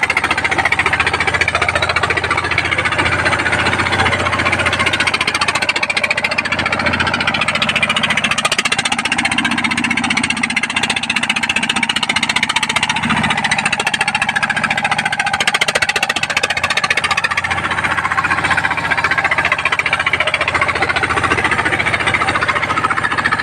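A vehicle's engine running hard with a rapid, knocking beat, working under load through deep mud. Its low note swells for a few seconds about ten seconds in.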